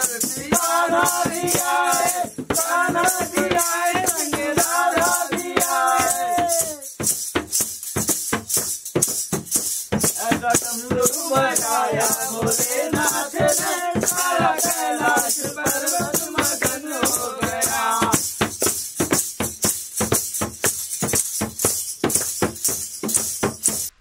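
Devotional song (bhajan) sung by voices to a fast, steady shaker-like rattle. The singing pauses twice, leaving only the rattle, and everything cuts off abruptly at the end.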